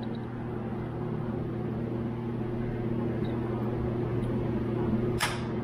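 A steady low hum in the background, with a single sharp click a little after five seconds as an AVCS oil flow control solenoid valve with oiled O-rings is pushed into the cylinder head of a Subaru EJ25 engine and seats.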